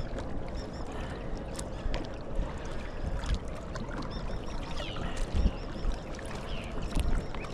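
Water lapping and splashing along a kayak hull as it moves across the water, with a few low bumps and faint bird calls.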